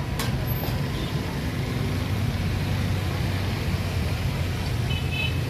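Steady low rumble of passing road traffic mixed with the sizzle of brain masala steaming on a large flat iron griddle, with one sharp metal spatula tap just after the start and a short high beep near the end.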